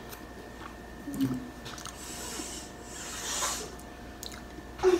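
Close-up eating sounds: wet mouth clicks and lip smacks as fingers are licked, with a short hummed "mm" about a second in. A soft hiss runs for about two seconds in the middle.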